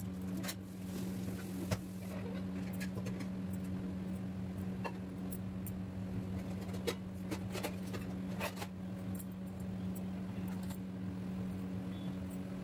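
Scattered light clicks and knocks of plastic food containers, lids and utensils being handled at a kitchen counter, over a steady low hum.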